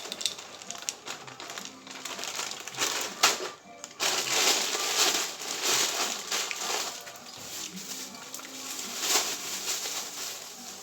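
Irregular crinkling and crunching while a cat is being fed, with quiet music in the background; it gets louder about four seconds in.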